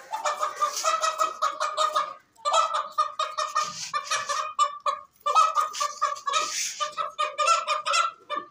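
Chukar partridge calling: a rapid, excited run of repeated clucking 'chuk' notes, in three long runs with short breaks between them.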